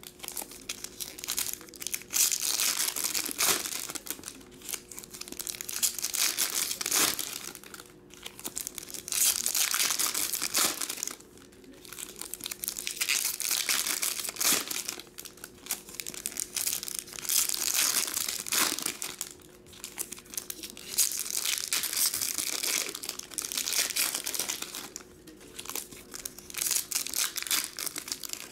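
Foil wrappers of Topps Chrome baseball card packs crinkling and tearing as packs are opened and handled, in bursts of a few seconds with short pauses between them.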